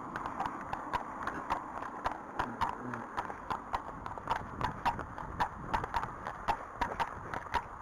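Hooves of two horses, a Friesian and an Arabian, clip-clopping at a walk on a tarmac lane: a steady run of sharp strikes, about three a second.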